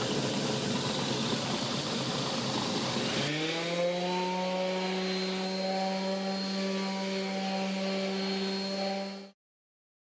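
A power tool cutting wood with a harsh grinding noise, then, about three seconds in, running free with a steady motor whine whose pitch rises slightly and holds. It stops abruptly near the end.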